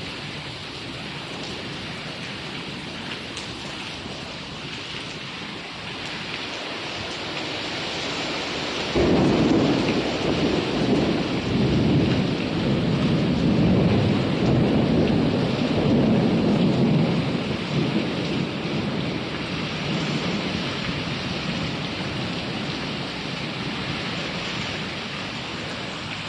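Steady hiss of heavy rain, with a long roll of thunder that breaks in suddenly about a third of the way through, rumbles for around ten seconds and then slowly fades.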